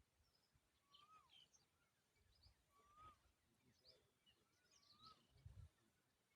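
Faint bird calls: a short whistled note that rises and then falls, repeated about every two seconds, with quick higher chirps in between. A couple of low dull bumps sound about midway and near the end.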